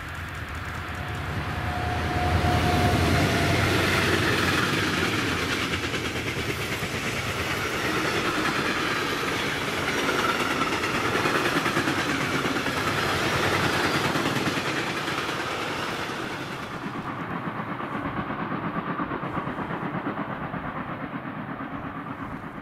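An electric-hauled freight train passes close by: the sound swells as the two locomotives go past, with a brief high whine about two seconds in. Then comes the steady rumble and clatter of the container and tank-container wagons' wheels on the rails. About three-quarters of the way through it drops to a fainter, more distant train sound.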